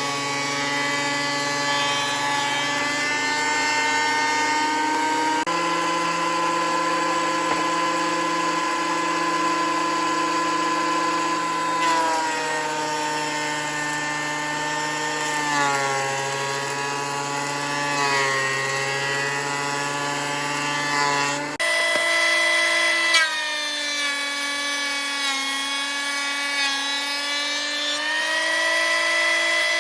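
Thickness planer running with a whining motor and cutterhead as pallet boards feed through. The pitch sags several times as a board loads the cutter, then recovers.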